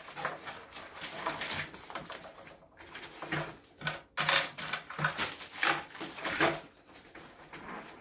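Rustling, scraping and light knocking as lantern gear is stuffed by hand into a fabric carrying bag, the busiest handling a few seconds in.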